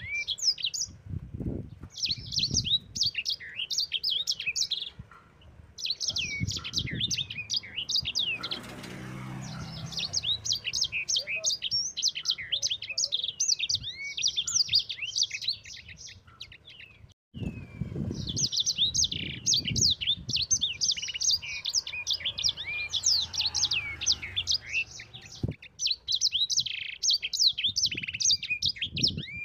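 A sanger (yellow-fronted canary) singing in long, rapid rolling phrases of high twittering notes, broken by short pauses and a longer break a little past halfway.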